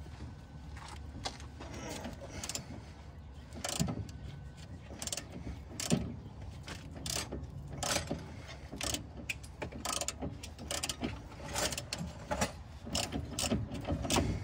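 Hand ratchet clicking as a nut on the steering linkage is worked loose in short strokes. The clicks are sparse at first, then come in quick, repeated runs from about four seconds in.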